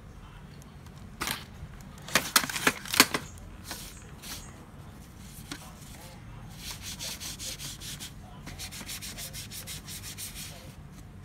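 Sheets of paper rustling and rubbing as they are handled: a few sharp scrapes about one to three seconds in, then two runs of quick, even rasping strokes in the second half.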